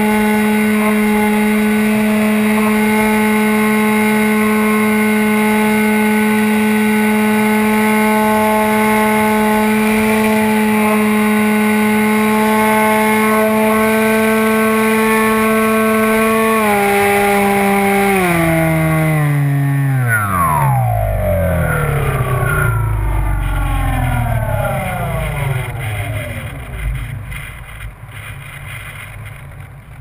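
Radio-controlled model plane's motor and propeller running with a steady whine, then throttled back in steps about two-thirds of the way through and winding down with a falling whine. Wind rumbles on the on-board microphone as the motor fades.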